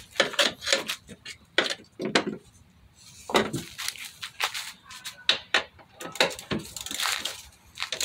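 Irregular metallic clicks and clinks of hand tools: a ratchet's socket and extension being handled and set onto a bolt.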